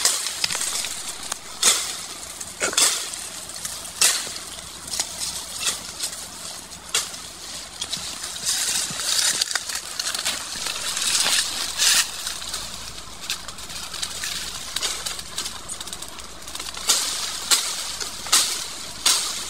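Dry brush, leaves and twigs rustling and snapping as a person pushes through and handles dense undergrowth, with a string of irregular sharp cracks over a steady hiss of leaves.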